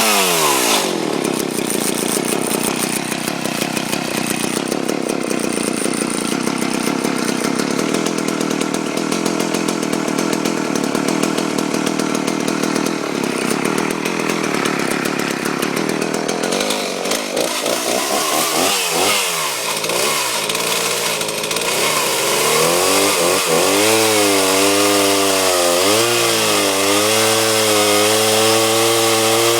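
Homelite 360 two-stroke chainsaw running at high revs for about the first half. Its pitch then wavers and drops, and near the end it settles into lower running with several brief dips and recoveries in pitch as the throttle is worked.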